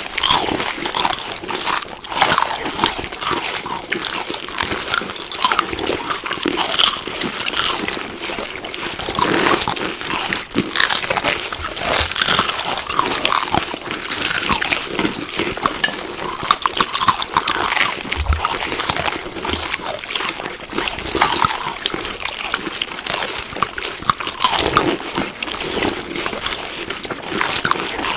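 Continuous chewing of crunchy food: a dense run of crunches and crackling bites.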